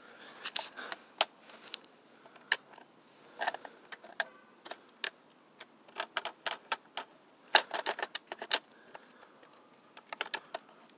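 Irregular clicks and knocks of hard plastic and metal as C batteries are handled and pressed into a toy truck's plastic battery compartment against its spring contact.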